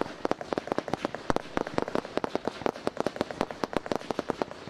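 Consumer-grade (F2) firework batteries firing a rapid volley of shots, several sharp pops a second, sending fans of red, green and white stars up.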